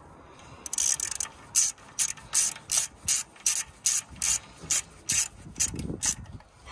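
Hand ratchet with a screwdriver-bit extension clicking in short rasps, about three strokes a second, as it drives the brake disc retaining screw into the rear hub; the clicking stops near the end.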